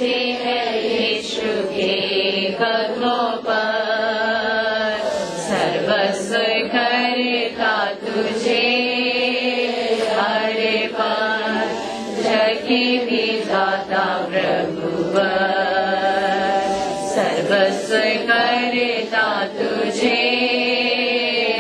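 A Hindi Christian worship hymn sung, the voices holding long, drawn-out notes that rise and fall from line to line.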